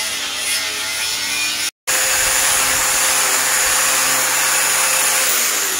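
A knife blade scraping into hard ironwood for about a second and a half. Then, after an abrupt break, a handheld electric angle grinder runs steadily with a high whine. Near the end it is switched off and its pitch falls as it spins down.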